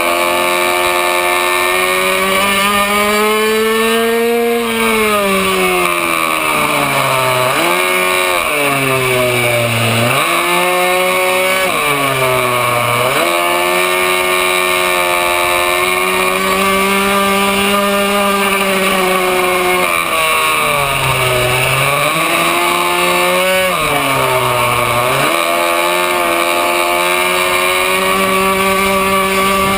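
A racing minibike's small two-stroke engine, heard from on board, running hard at high revs. Its pitch drops sharply several times as the bike slows for corners, then climbs back up as the rider accelerates out.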